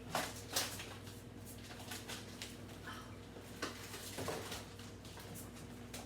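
Light knocks, clicks and rustles of food containers and packages being moved around in a refrigerator, a few scattered handling sounds over a steady low hum.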